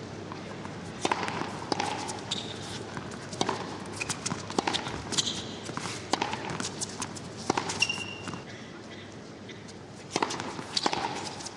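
Tennis ball struck and bouncing on a court in irregular sharp knocks, with a few short shoe squeaks, over a steady crowd murmur.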